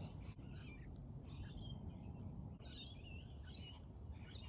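Faint bird calls, a few short chirping phrases scattered through, over low steady outdoor background noise.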